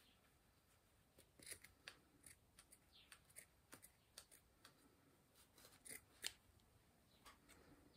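Small scissors snipping through sock fabric in a quiet series of short, irregular cuts. The snips begin about a second and a half in, with the loudest near the end.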